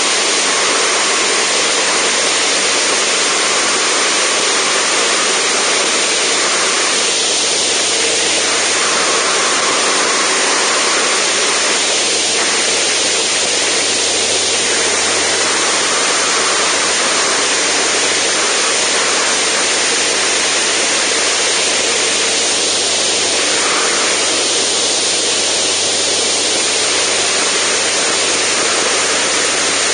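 Zenith STOL CH750 light aircraft in cruise: the engine and propeller drone steadily under a loud, even rush of wind noise on the camera.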